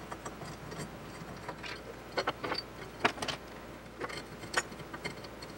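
Hex screwdriver turning a bolt into a steel base and aluminium extrusion: scattered, irregular small metallic clicks and taps as the bit seats and the bolt is run in.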